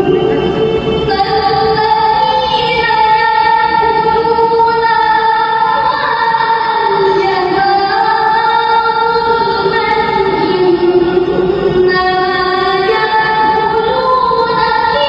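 A woman reciting the Qur'an in the melodic tilawah style, one voice drawing out long held notes that slide and waver in pitch without a break.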